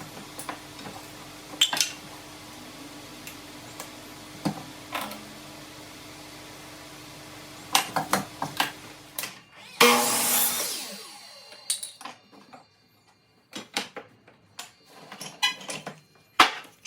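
Workshop handling noises: scattered knocks and clatter over a faint steady hum, then a brief loud rushing burst about ten seconds in, followed by a few more sparse knocks.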